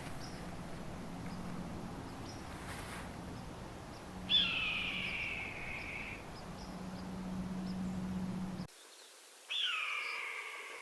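Red-tailed hawk screaming twice, each scream a long call that slides down in pitch. The first lasts nearly two seconds and the second, about five seconds later, is a little shorter.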